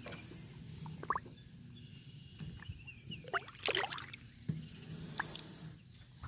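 Water splashing and dripping, with a few light knocks, as a caught fish is let go back into the water. The biggest splash comes about three and a half seconds in.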